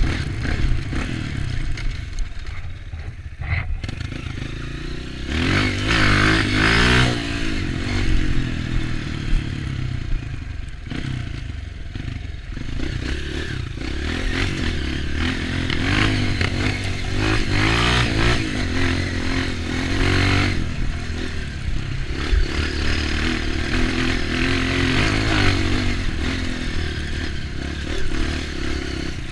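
Dirt bike engine being ridden off-road, its pitch rising and falling several times as the throttle is opened and eased off, with scattered knocks and rattles from the bike over rough ground.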